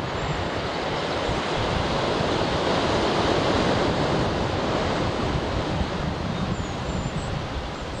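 Ocean surf washing in, swelling to its loudest around the middle and easing off, with wind rumbling on the microphone. A few faint, high bird chirps come near the end.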